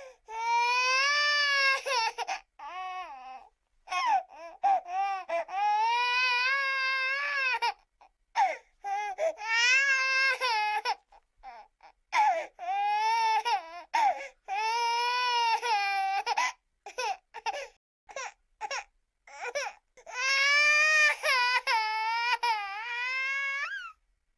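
A human baby crying: long, high, wavering wails of a few seconds each, broken by short pauses, with a run of short choppy cries about two-thirds of the way through.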